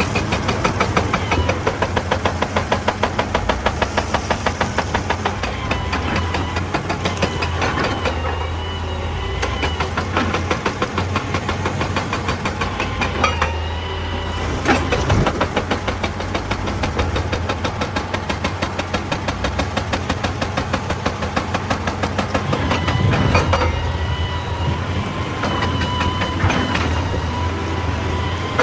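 Excavator at work on rock: the machine runs under a rapid, steady knocking, several blows a second, with one sharper heavy knock about fifteen seconds in.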